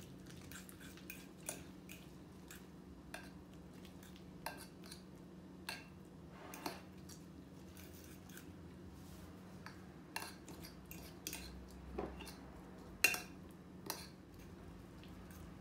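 Metal fork clinking and scraping against a ceramic plate while mixing a thick banana, egg and oat batter: irregular light clicks, one sharper near the end, over a faint steady hum.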